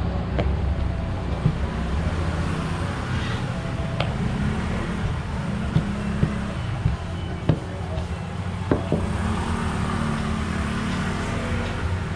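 Wooden rolling pin knocking now and then against a wooden work counter as dough is rolled out, a handful of short sharp knocks over a steady low background rumble.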